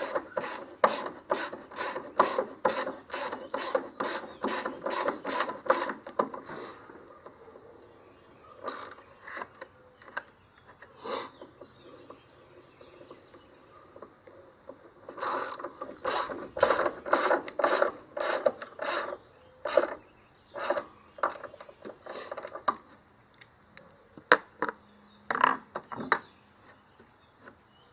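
Hand ratchet wrench worked in quick back-and-forth strokes, about two a second, turning a bolt while a new truck battery is fitted. It goes in two runs of steady ratcheting with a pause and a few single strokes between them.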